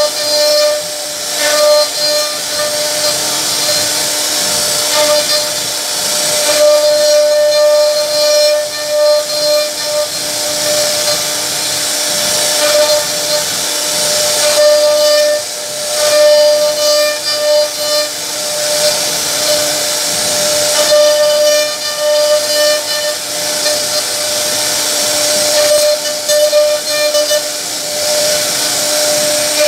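CNC router spindle carving a wooden panel: a steady high whine, with a hissing cutting noise that grows and fades every few seconds as the bit works through the wood.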